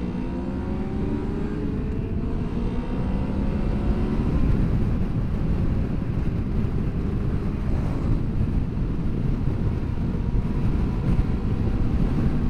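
Honda VFR800 V4 motorcycle engine accelerating, its pitch rising over the first few seconds, then steady rushing wind noise building as road speed climbs.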